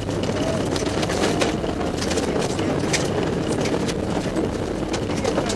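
Rally car engine running hard on a snowy gravel stage, heard from inside the cabin, its note rising and falling with steady road and wind noise. Scattered sharp clicks and knocks from the car over the rough surface.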